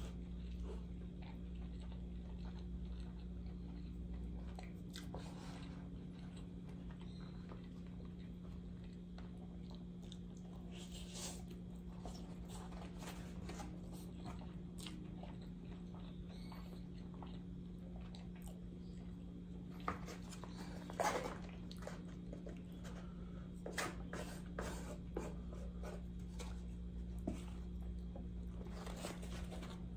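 Close-miked chewing, biting and mouth sounds of a person eating, with scattered sharp clicks and taps from wooden chopsticks on a paper bowl, over a steady low electrical hum.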